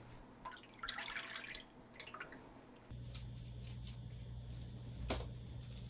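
Faint wet, squishy handling of cooked rock bream pieces with gloved hands, with soft rustles and small clicks. A low steady hum comes in abruptly about three seconds in, and there is one sharp click near the end.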